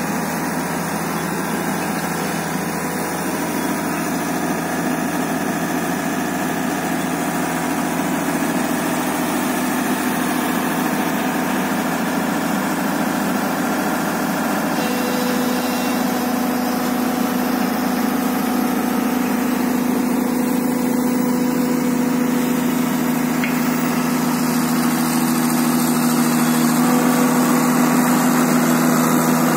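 Diesel engine of a Tata Hitachi EX110 crawler excavator running steadily as the machine crawls down off a truck bed. About halfway through a steadier hum comes in, and the engine grows slightly louder near the end.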